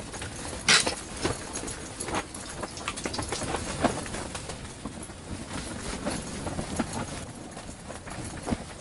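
Irregular small knocks and clicks from handling, over a low rumble, with one sharp click about a second in.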